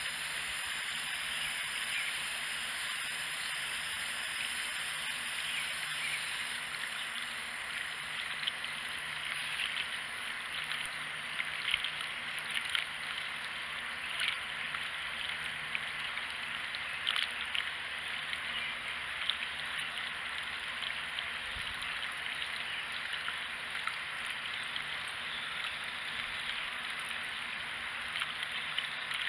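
Garden hose running water into a plastic watering can: a steady splashing trickle. From about eight seconds in there are scattered small clicks and splashes as a cat laps at the water.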